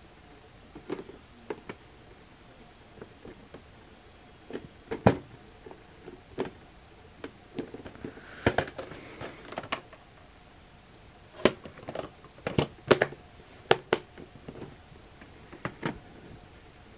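Plastic VHS clamshell cases being handled, knocked together and set down on carpet: irregular clicks and knocks, busiest in the second half, with a brief sliding rustle about halfway through.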